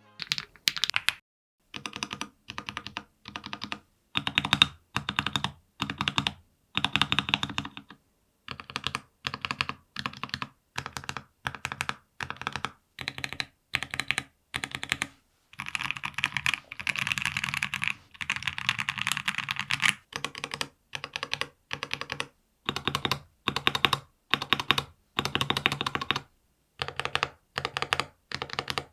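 Stabilized keys (spacebar, shift, enter and the like) on a Monsgeek M3W mechanical keyboard with a PC plate, full foam and stock-lubed stabilizers, pressed and released in short runs of clacks separated by brief silences. There is one longer, denser run of presses in the middle.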